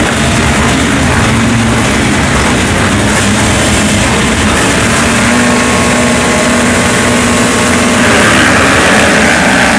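A full start line of motocross bikes running together, the riders holding and blipping their engines' revs at the gate. The combined engine sound swells a little louder about eight seconds in.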